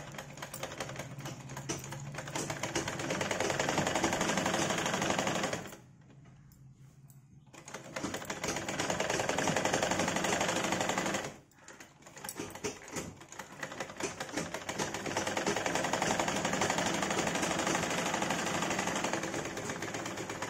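Domestic sewing machine stitching a seam with a fast, even clatter of the needle, in three runs: it picks up speed over the first few seconds, stops for about two seconds around six seconds in, runs again, pauses briefly near eleven seconds, then runs on steadily.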